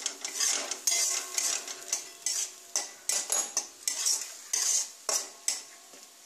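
Flat metal spatula scraping repeatedly across the bottom of an aluminium kadai while stirring a spice paste frying in a little oil, about two strokes a second.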